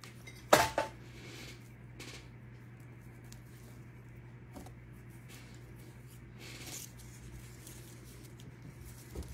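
Dried flower stems and paper being handled: a sharp crackle about half a second in, then a few faint rustles and scrapes. A steady low hum runs underneath.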